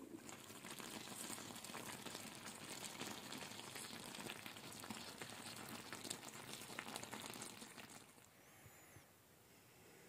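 Chicken drumsticks and penne simmering in tomato juice in a lidded cast-iron skillet: a soft, steady bubbling and crackling that fades out about eight seconds in.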